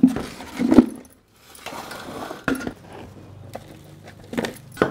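Raw mango pieces coated in salt and turmeric dropped by hand into a clear jar, knocking against its sides and against each other in several separate clinks, loudest at the start and about a second in.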